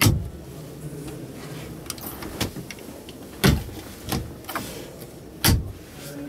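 Plastic overhead storage compartment lids in a truck cab being handled and shut: a series of sharp thumps, the loudest at the very start, about three and a half seconds in and about five and a half seconds in, with lighter knocks between.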